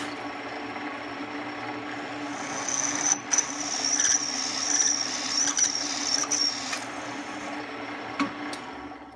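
Benchtop drill press running, its twist drill bit cutting a hole through an aluminum plate. The motor hums steadily. From about two seconds in, a high squeal from the bit in the metal lasts about four seconds, with a few sharp clicks.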